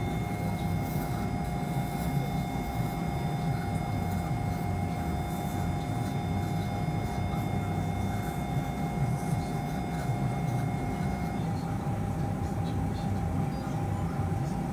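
A steady electronic tone with a few higher overtones over a continuous low hum of operating-room equipment. The tone cuts off about eleven seconds in, leaving a fainter steady tone.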